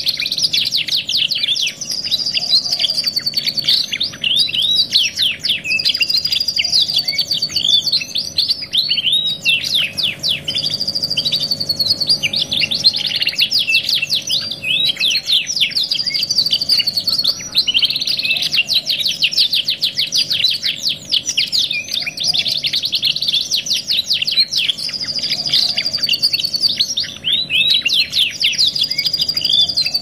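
Domestic canaries singing continuously: long rolling phrases of rapid trills and sweeping chirps, with a few held whistled notes.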